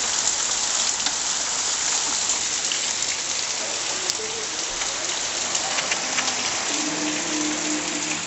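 Heavy rain falling steadily: a dense, even hiss with scattered ticks of individual drops.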